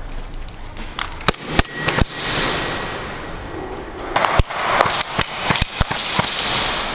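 Airsoft guns firing: sharp cracks, one at a time and in short irregular clusters, with the rustle of movement between them.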